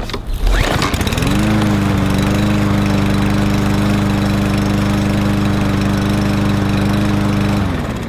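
Briggs and Stratton 550EX overhead-valve single-cylinder push-mower engine pull-started. It catches about a second in, runs steadily at speed, then is shut off near the end and spins down. It starts and runs well now that its plastic carburetor has been cleaned.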